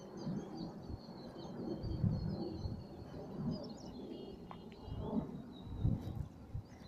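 Small birds chirping and twittering repeatedly in short high notes, over a low, uneven rumble.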